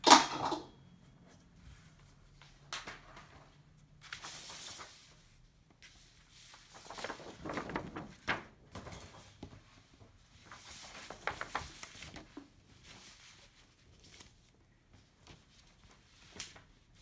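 Large paper wargame maps being unfolded and spread out on a wooden table: several bursts of paper rustling and crinkling, with a sharp knock right at the start, the loudest sound.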